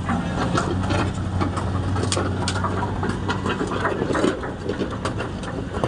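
Excavator diesel engine running steadily under a string of sharp knocks and clacks from boulders striking each other and the bucket as they are loaded.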